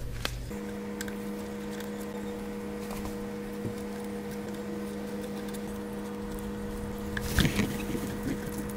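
A steady hum of several fixed tones, with light clicks and scrapes of gloved hands working at the cast metal cover over a milling machine's valve block, a cluster of them near the end.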